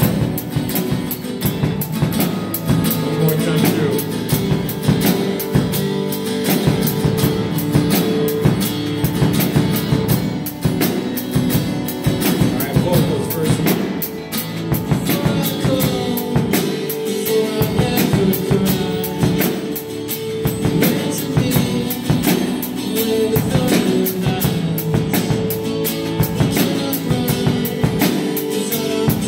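A band playing a song together: a Fender acoustic guitar strummed in a steady rhythm, with keyboard chords and a drum kit keeping an even beat.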